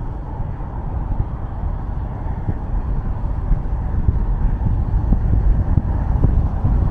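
Car driving on a highway: a steady low rumble of road and engine noise that grows gradually louder.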